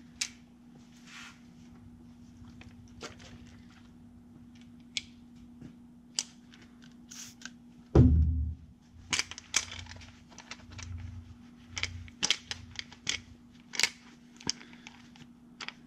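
Clicks, scrapes and knocks of tools on a Stihl MS462 chainsaw as it is handled and its sawdust is scraped out, with one heavy thump about eight seconds in. A steady low hum runs underneath.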